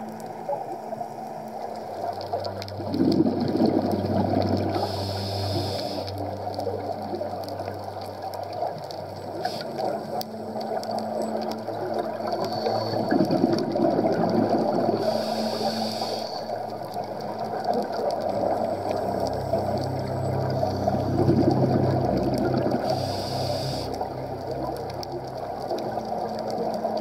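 Scuba diver breathing through a regulator underwater: exhaled bubbles rush out about every nine seconds, each followed a second or so later by a short hissing inhale. A steady low hum runs underneath.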